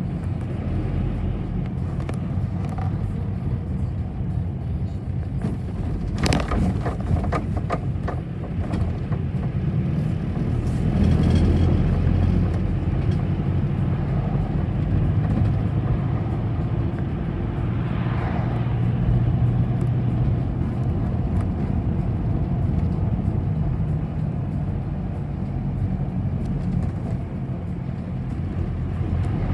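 City bus in motion, heard from inside: a steady rumble of engine and road noise. A few sharp knocks and rattles come about six seconds in, and the rumble swells briefly around eleven seconds.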